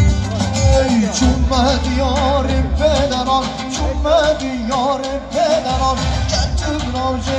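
Live amplified folk music: a singer's ornamented, wavering vocal line over instrumental accompaniment with a heavy, steady bass, the voice coming in about a second in.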